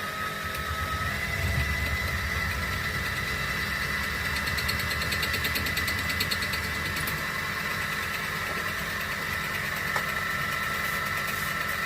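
Metal lathe running under a cut, a steady low rumble with a high whine over it, and a single click about ten seconds in.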